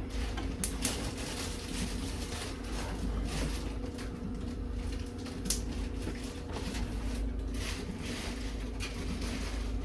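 A steady low hum with a few scattered light clicks and knocks of kitchen utensils and cookware being handled.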